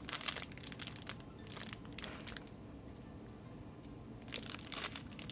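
Plastic bags of small building-block pieces being handled and crinkled, with scattered sharp clicks of pieces shifting inside. The crinkling is busiest in the first two seconds and again shortly before the end.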